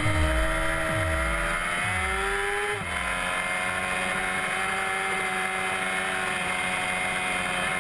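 Yamaha R6 sportbike's inline-four engine pulling with a steadily rising pitch; about three seconds in the pitch drops suddenly, and it then runs on at a steady pitch under heavy wind noise.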